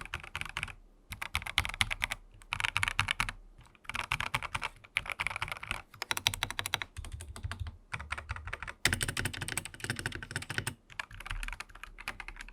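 Typing on a Dareu A87 mechanical keyboard fitted with SP Star Polaris Grey switches, Akko ASA-profile keycaps and a custom bottom foam meant to cut its hollow sound. The keystrokes come as quick runs of clicks broken by short pauses.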